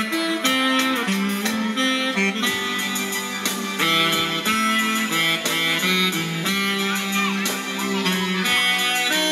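Instrumental music with a steady beat and a melody of long held notes.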